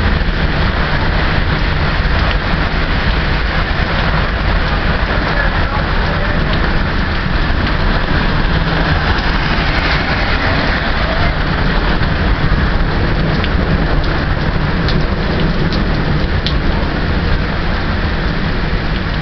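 Heavy rain falling during a thunderstorm: a steady, dense hiss with a low rumble underneath.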